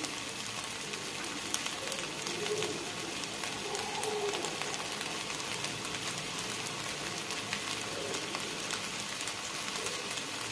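Raw rice with shallots and cherry tomatoes frying in a pan, a steady sizzle with scattered crackles. The rice is being toasted to half-cooked before water goes in.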